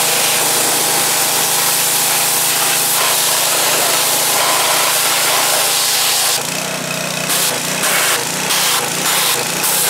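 Power washer jet spraying water hard onto a motorcycle engine, blasting off the first layer of acid-loosened grime: a steady loud hiss, then cut in and out in several short bursts from about six seconds in.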